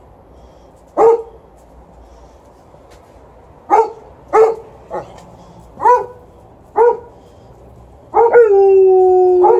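Alaskan Malamute and golden retriever barking, about six short single barks spaced a second or so apart. Near the end the malamute breaks into a long howl that sinks slightly in pitch. The dogs are impatient to be taken for a walk.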